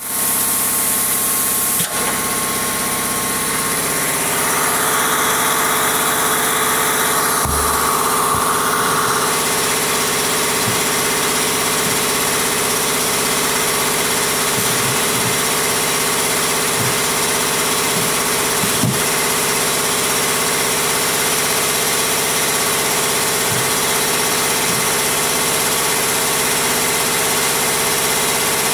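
Pertici ML124 automatic mullion-cutting saw running steadily, a loud machine drone made of several steady tones. A brighter hiss rises between about four and nine seconds in, and a few faint knocks sound through it.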